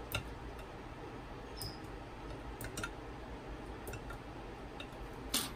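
Small metal clicks and ticks of screws being fitted and started into a resin vat's metal frame, a few scattered taps with a louder click near the end.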